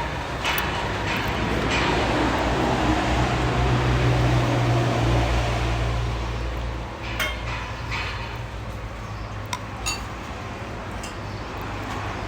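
Dishes and cutlery clinking now and then, sharpest a little after seven seconds in, over a steady low hum.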